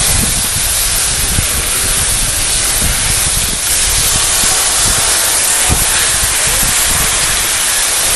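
Steady loud hiss of skis sliding over snow, with wind buffeting the microphone underneath in low, uneven rumbles.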